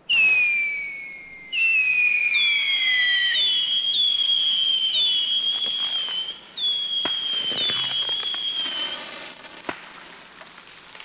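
Whistling fireworks going off. The first two shrill whistles fall in pitch, then comes a quick run of repeated whistles, each starting with a short upward chirp. A few sharp cracks come near the end.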